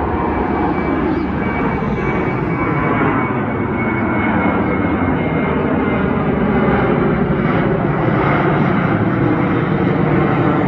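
Airbus A321-231 climbing out after takeoff, its two IAE V2500 turbofans at climb power: a loud, steady jet rumble with a faint high whine, growing slightly louder as it passes overhead.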